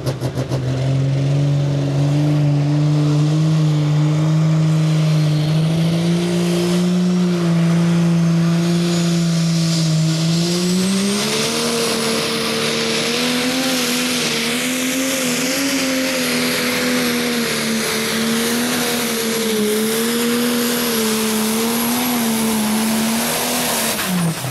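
Turbocharged diesel engine of a Case IH 335 Pro Stock pulling tractor running flat out under load as it drags the weight sled, with a high turbo whistle climbing over the first ten seconds or so. The engine note steps up about ten seconds in, wavers through the rest of the pull, and drops near the end as the pull finishes.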